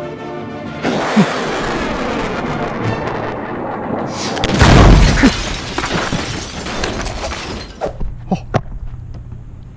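Homemade firework rocket igniting with a sharp pop and hissing as it launches, then a loud boom about halfway through, followed by a fading crackle and a few scattered pops near the end. Music plays at the very start.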